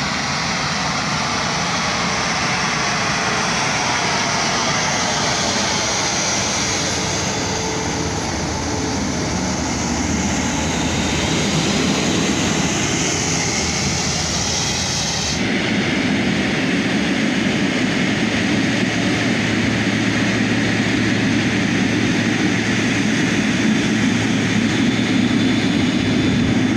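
Jet engines of a taxiing Airbus A350 passing close by: a steady loud rush and whine whose tone sweeps as the aircraft goes past. About halfway through it cuts abruptly to the steady engine noise of a Boeing 777 close by.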